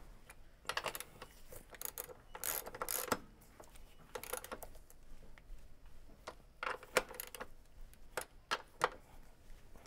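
Hand wrench clicking and clinking on the bolts of a BMW E30 front control arm bushing bracket as they are tightened into the frame, in short irregular clusters of metal clicks.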